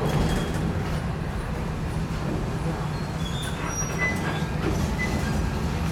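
Ex-Kanto Railway Kiha 350 diesel railcar running with a steady low drone, heard from inside its crew cab as it moves slowly along a platform. A few brief, faint high-pitched squeaks come in the second half.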